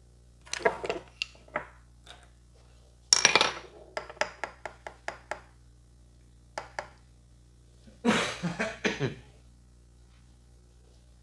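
Barber's hands working a champi head massage: quick bursts of slaps and claps on the head, with single sharp taps and clicks between the bursts.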